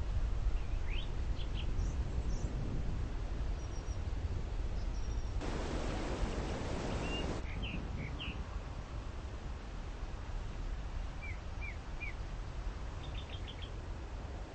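Small birds chirping in short, scattered calls over a steady low rumble of wind or outdoor noise, with a two-second burst of hiss about five seconds in.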